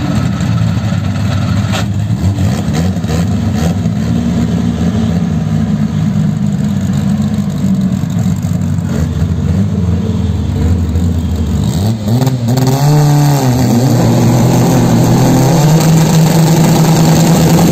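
Turbocharged front-wheel-drive drag cars, a VW Gol among them, idling at the start line. About twelve seconds in they rev up and hold a steady high rev, ready to launch.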